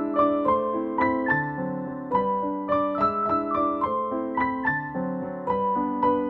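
Background piano music: a flowing line of single notes, about three a second, over lower held notes.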